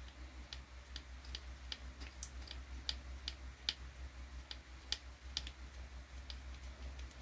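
Small, sharp clicks about two to three times a second as a hand hex driver is turned to drive a small screw into an RC car's carbon-fibre chassis brace, over a steady low hum.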